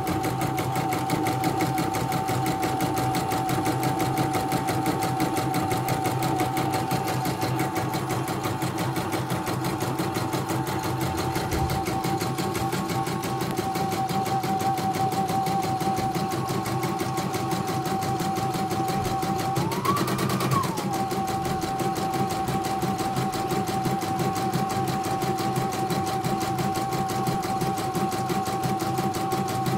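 CNY portable computerised embroidery machine stitching a design, its needle running in a fast, even rhythm over a steady motor hum. About two-thirds of the way through, the pitch briefly rises for about a second, then settles back.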